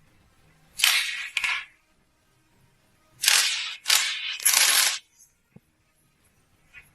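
Hissing blasts from a pressurised jet, as used to clean parts during a gearbox teardown: two short blasts about a second in, then three closer together a couple of seconds later.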